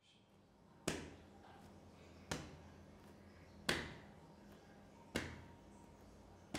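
Sharp thuds at a steady slow pace, one about every second and a half, each with a short ringing echo, over a faint low hum.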